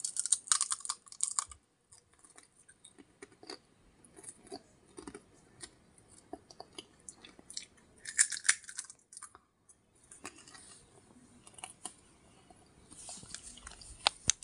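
A child chewing a crunchy snack close to the microphone: irregular crackling crunches, loudest as she bites in at the start and again about eight seconds in.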